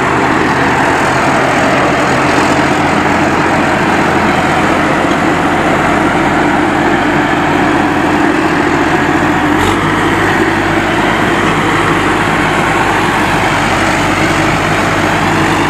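Rice harvesting machine running steadily, its engine and drive making a loud, dense mechanical din. The engine note changes slightly about ten seconds in.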